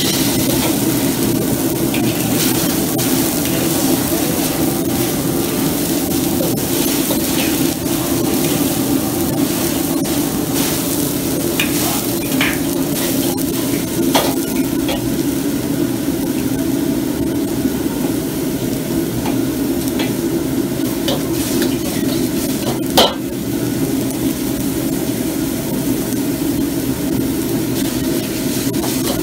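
Food sizzling in a steel wok over a gas wok burner, with the steady rush of the burner, while a ladle stirs and scrapes, clinking against the wok now and then. One sharp, loud clank about 23 seconds in.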